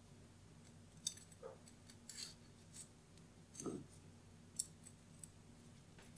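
Kitchen knife clicking and scraping against a wooden chopping board as a small red chilli is slit and its seeds scraped out: several faint, sharp ticks and short scrapes, with a soft knock a little past halfway.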